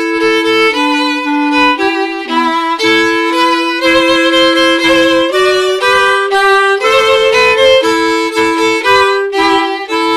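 Violin and clarinet playing a traditional Provençal tune in two parts, the notes changing every half second or so, settling onto a held final chord right at the end.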